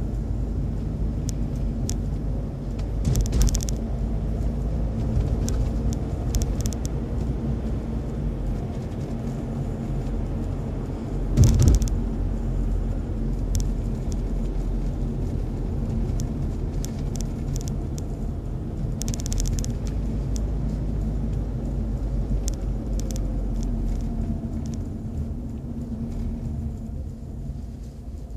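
Steady road and engine rumble inside a moving car's cabin, with a few brief knocks, the loudest about eleven seconds in. The rumble quietens near the end as the car slows.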